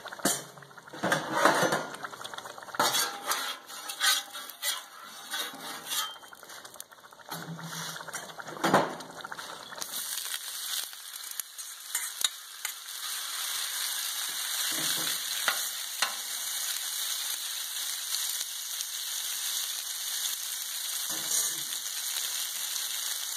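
Cooked pasta frying in oil on a Blackstone flat-top griddle while it is stirred. For the first ten seconds or so there is irregular scraping and clicking of the turner against the steel; after that a steady, even sizzle takes over.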